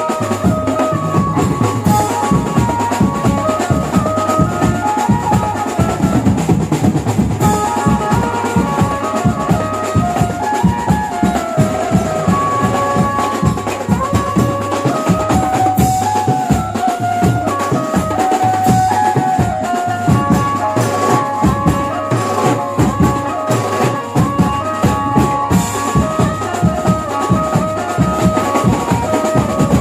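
Background music from a Maharashtrian banjo-party band: a stepping melody over fast, busy drumming.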